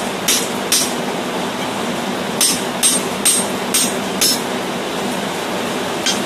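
Hand hammer striking a steel punch driven into the eye of a red-hot steel hammer head to expand it: sharp metallic clinks with a brief high ring. Two blows, a pause, a run of five about half a second apart, then one more near the end.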